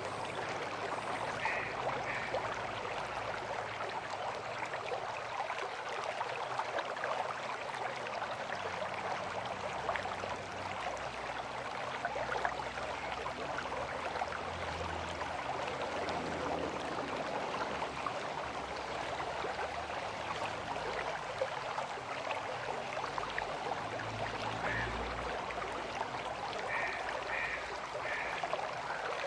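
River water flowing with a steady, even rushing. A few short high chirps come near the end.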